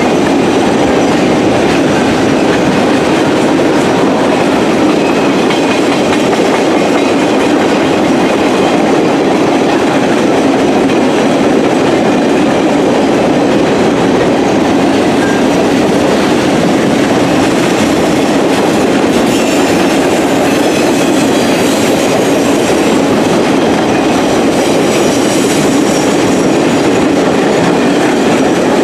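A Norfolk Southern RoadRailer freight train rolls past: a loud, steady rush of wheels on rail with clickety-clack over the rail joints.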